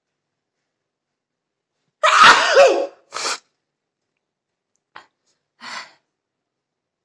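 A woman sneezes loudly once about two seconds in, with a shorter burst of breath right after. Near the end comes a faint click and one more short, soft breath. The sneeze is brought on by sniffing chili powder.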